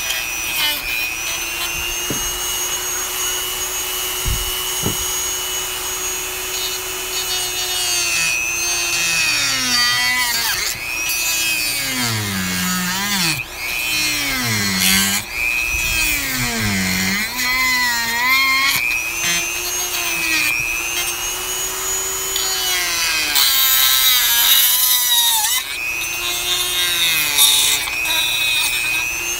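Dremel rotary tool running with a high steady whine, cutting into the housing of a Mikuni lawn mower fuel pump. From about a third of the way in, and again near the end, the pitch dips and recovers again and again as the tool bogs under the load of the cut.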